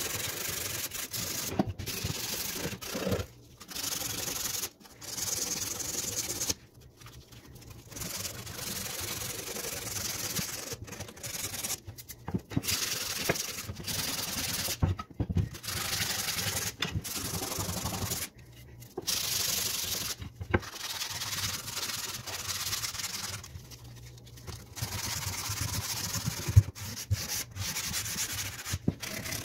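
Hand sanding of old wooden moulding with a small piece of sandpaper: runs of quick scratchy back-and-forth strokes, broken every few seconds by brief pauses, with a single sharp tap near the end.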